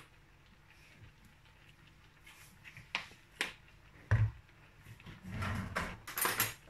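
A few sharp clicks and a low knock a little after the middle, then rustling: a plastic squeeze bottle of liquid butter being capped, handled and set down at the stove.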